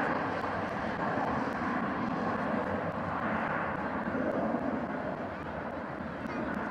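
Airbus A321-131 jet airliner's twin IAE V2500 turbofan engines running at takeoff power during the takeoff roll. The engine noise is steady and eases slightly in the second half.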